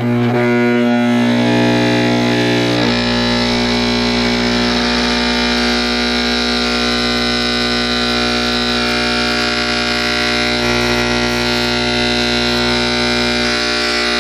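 DeWalt angle grinder's brushed motor held in a locked-rotor stall by its spindle lock pin, fed about 34 volts AC and drawing about 8 amps, humming steadily with a buzz rich in overtones. No fan turns, so the stalled motor is heating with no cooling.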